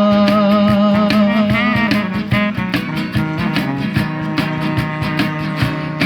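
Band music: a singer holds the last word of a line on one long wavering note for about two seconds, then guitars and drums carry on alone with a steady beat.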